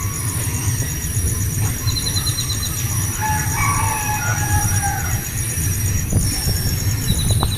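A bird call of a few seconds, with several pitches, over steady high-pitched insect buzzing and a continuous low rumble.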